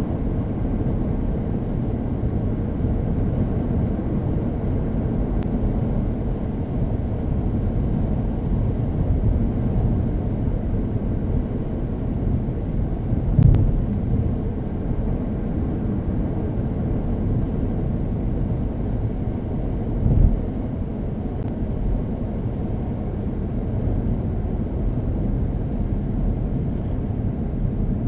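Steady low engine and road noise of a 2012 Chevrolet Cruze, with its 1.4-litre turbocharged Ecotec four-cylinder, heard from inside the car while driving. Two brief low thumps stand out, one about halfway through and another about seven seconds later.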